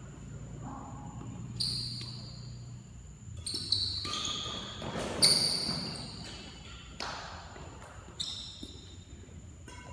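A doubles badminton rally: several sharp racket strikes on the shuttlecock, mixed with short high squeaks of sneakers on the court floor.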